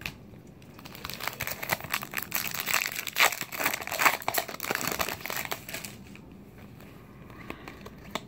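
Foil trading-card pack wrapper crinkling as it is handled, a dense crackle lasting about five seconds before it dies down.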